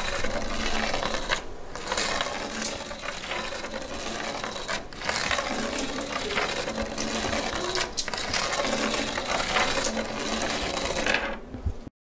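Bare copper wire coil rattling and clinking with a continuous metallic jingle of many small clicks, like loose coins. There are brief lulls about one and a half, five and eight seconds in, and it cuts off suddenly near the end.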